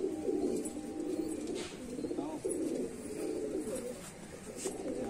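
Domestic pigeons cooing, several calls overlapping without a break.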